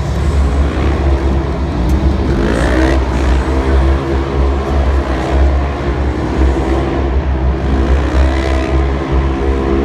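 Engines of side-by-side off-road UTVs racing on a dirt arena track, over a loud steady low rumble. The engines rev up in rising sweeps about two and a half seconds in and again near the end.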